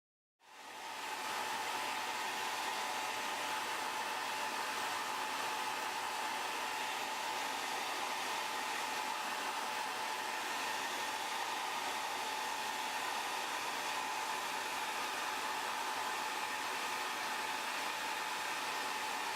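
Electric hot-air blower running steadily: a strong even hiss with a faint steady whine near 1 kHz, fading in about half a second in. It is heating the glass to soften the adhesive that holds it to the midframe.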